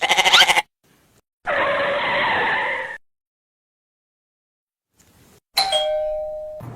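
A string of short comedy sound effects separated by silences: a quick rattle of rapid clicks at the start, then a sustained screech like skidding tyres lasting about a second and a half, and near the end a ringing tone that fades away.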